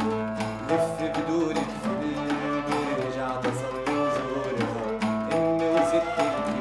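Background music: held melodic notes over a steady percussion beat.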